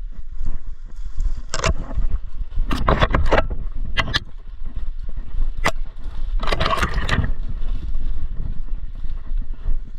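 Steady low rumble of wind buffeting the microphone, broken by about five short, sharp noisy bursts spread across the first seven seconds.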